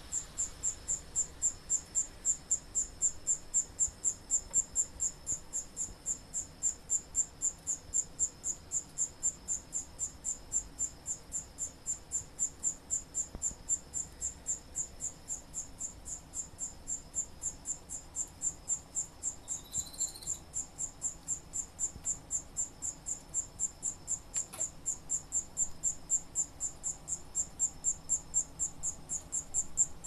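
Tambo cricket (Modicogryllus siamensis), a small field cricket, singing: a steady, high-pitched train of chirps, about three or four a second, kept up without a break.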